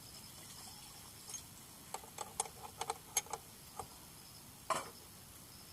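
Faint, irregular metallic clicks of a spanner working the chain adjuster bolt on a motorcycle swingarm, tightening the drive chain.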